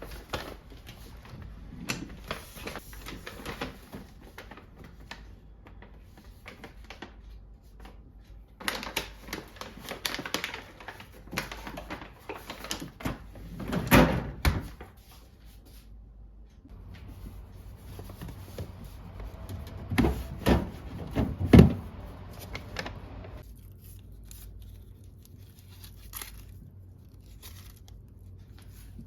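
Household handling sounds: irregular knocks, clacks and rustling of things being moved and unpacked, with a few louder thuds, and a low steady hum for a few seconds in the middle.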